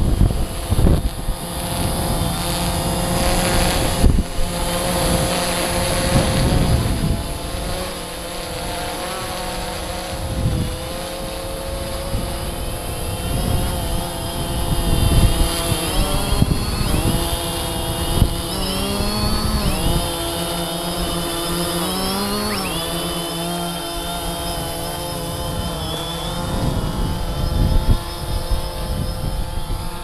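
DJI Phantom 3 Standard quadcopter's four motors and propellers whining as it hovers and manoeuvres close by, the pitch sliding down and back up several times past the middle as the motors correct. Gusts of wind buffet the microphone throughout.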